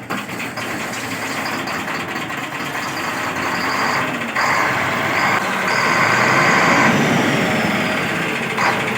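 Cummins six-cylinder diesel engine of a SEM 650B wheel loader running. It gets louder about four seconds in and eases off near the end. The engine is hard-starting and dies after running because diesel is not reaching the injection pump.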